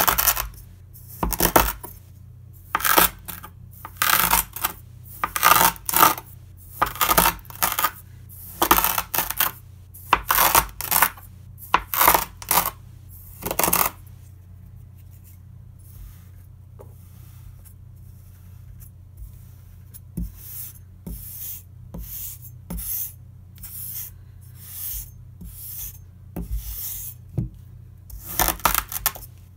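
Chef's knife cutting through maroon kinetic sand, each slice a crisp crunch as the blade presses through to the board, about one or two cuts a second. The cuts are loud through the first half, pause for several seconds near the middle, then come back softer before growing louder near the end, over a faint steady low hum.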